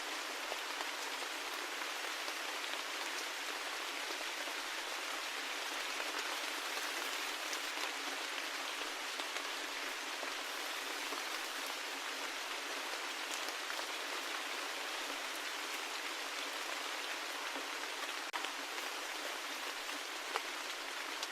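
Steady rain falling, an even hiss of many drops, with a couple of sharper drop ticks near the end.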